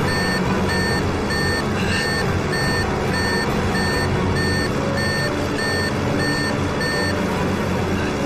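Cockpit warning alarm of a fighter plane beeping about twice a second over the steady drone of its engine, the alarm of a plane that has been hit; the beeping stops about seven seconds in.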